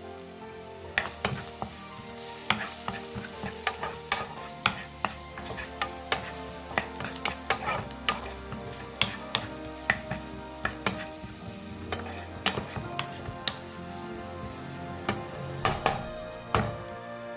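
Sliced potatoes frying with a sizzle in a pan, stirred with a utensil that knocks against the pan about twice a second, starting about a second in.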